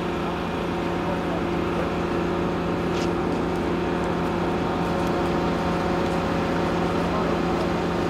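A large engine running steadily at an even pitch: a constant low drone.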